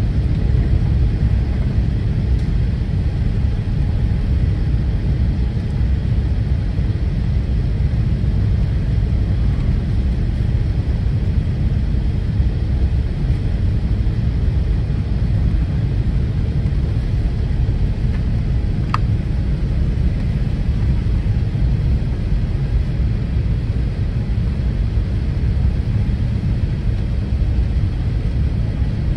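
Steady low rumble of an Airbus A380's cabin during the climb after takeoff, heard inside the cabin beside the wing, with one brief click about two-thirds of the way through.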